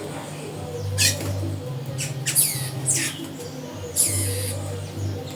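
Bird calling: four shrill, downward-sweeping squawks, spaced about a second apart, over a steady low hum.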